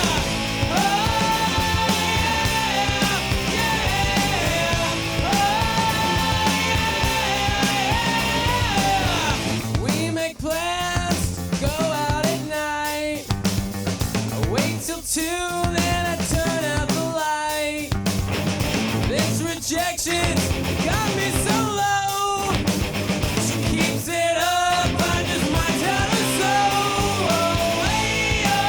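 Rock music with singing. From about a third of the way in, the full band breaks into short separate phrases with brief gaps, and the full sound returns near the end.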